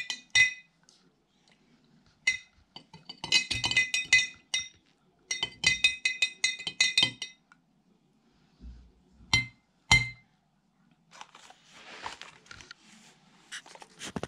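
Metal spoon stirring salt into hot water in a glass jar, clinking rapidly against the glass in two runs of a couple of seconds each, then two single taps on the jar. Near the end comes a softer scraping rustle as the spoon scoops more salt from a plastic bag.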